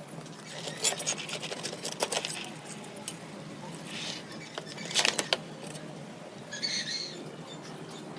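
Small clicks and scraping of hand work on a device, with a louder cluster of clicks about five seconds in.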